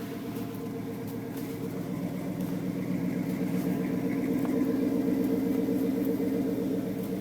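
LS-swapped 1984 GMC truck's V8 idling smoothly in freezing weather. It runs steadily, growing a little louder around the middle and easing off near the end.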